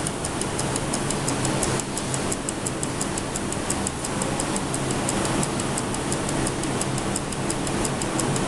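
Mechanical dial timer on an electric waffle iron ticking evenly, about four ticks a second, over a steady hiss, while the waffle bakes.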